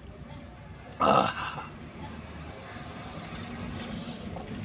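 A short, loud throat sound about a second in, like a burp, from a man eating pieces of cooked drumstick (moringa) pod. A low steady hum follows in the background.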